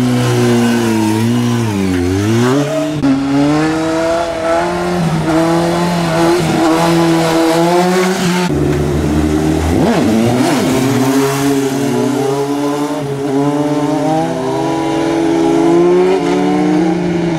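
Motorcycle engine revving and held at high revs. The pitch dips and climbs about two seconds in, runs steady, changes abruptly about eight and a half seconds in, then climbs slowly near the end.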